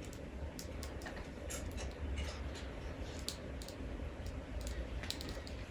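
Scattered small plastic clicks and taps as a Hasbro Lightning Collection Goldar action figure is handled and its limb joints are moved, over a low steady hum.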